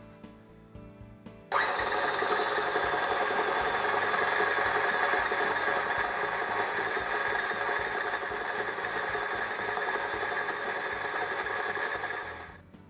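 KitchenAid stand mixer switched on, its motor running steadily with a high whine as the flat beater creams softened butter with powdered sugar. It starts about a second and a half in and winds down shortly before the end.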